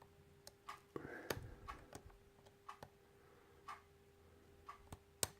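Faint, irregular small metal clicks and ticks of a hook pick working the pin tumblers of an American 1100 series padlock held under a tension wrench. A faint steady hum runs underneath.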